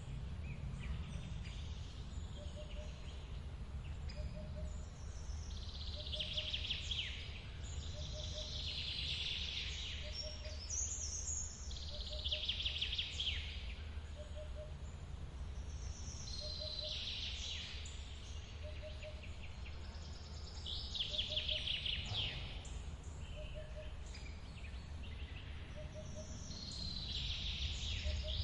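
Steady low rush of a forest waterfall, with a bird singing a falling, trilled phrase every few seconds. A faint short note repeats evenly a little more than once a second.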